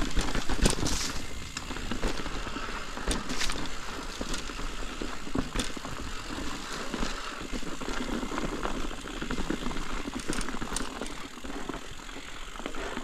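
Ibis Ripmo mountain bike being ridden over a rough, rocky dirt trail: steady tyre and trail noise with scattered sharp clicks and knocks from loose rock.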